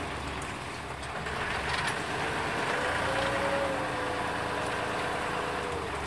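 Small wooden tour boat's engine running steadily, a continuous mechanical hum, with a faint held tone through the second half.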